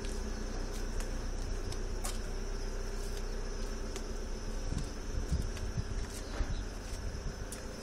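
A steady background drone: a low hum with a continuous high-pitched whine above it. Scattered light clicks and a few soft low thumps, loudest between about five and six and a half seconds in, run over it.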